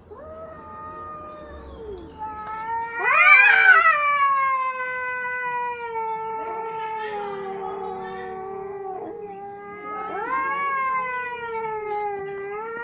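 Domestic cats caterwauling: long, drawn-out, wavering yowls that swell loudest about three seconds in, sink slowly in pitch, and swell again near the end.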